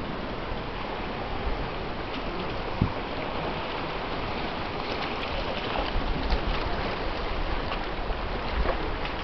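Baltic Sea waves washing onto the shore and rocks, with wind blowing: a steady rushing noise, with low wind buffeting on the microphone in the second half.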